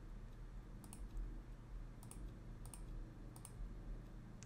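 About five faint, sharp computer mouse clicks, roughly one a second, over a low steady hum: the Divide button being clicked again and again, each click subdividing the 3D mesh one more level.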